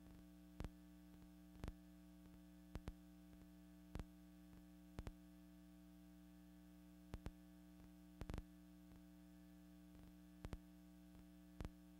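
Near silence: a steady low electrical hum with irregular sharp clicks, roughly one a second, the noise of an archival film transfer that carries no recorded sound.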